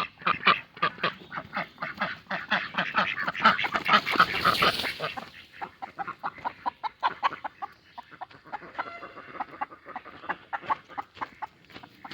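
A flock of domestic ducks quacking in quick, overlapping calls. The calls are busiest in the first half and thin out in the second. A brief rush of noise comes about four seconds in.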